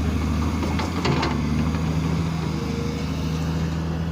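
Engine of road-construction machinery running steadily, with a couple of short clicks about a second in.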